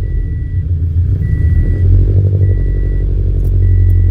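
Scion FR-S flat-four engine idling through a Tomei unequal-length header just after starting, its speed wavering a little around the middle. A car's warning chime beeps evenly four times over it, about once every second and a bit.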